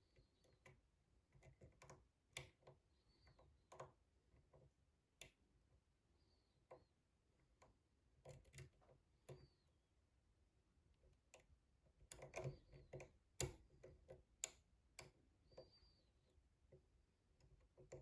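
Faint, irregular small clicks and ticks of a lock pick and tension wrench working the pins of a challenge lock, with a few short light scrapes, and a denser run of clicks past the middle.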